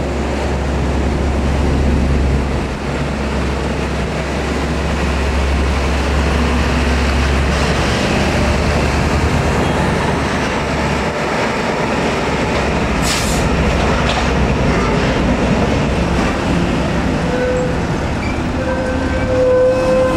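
Hino Ranger SG 260TH tractor unit's diesel engine running as it pulls a loaded box trailer slowly past, the deep engine drone strongest for the first half. A single short knock about thirteen seconds in, and a thin squeal comes in near the end.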